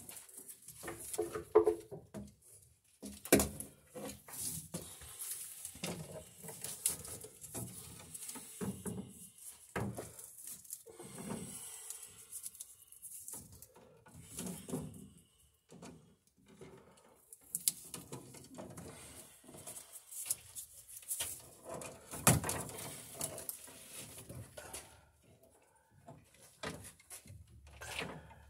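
Handling noise from orange NM electrical cable being pulled and worked into a breaker panel: irregular rustling with scattered clicks and knocks, the sharpest about two, three and twenty-two seconds in.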